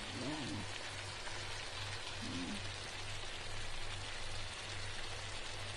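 Mushrooms, sausage and green bell pepper frying in a pan, a steady sizzle, with a low hum underneath that pulses about twice a second.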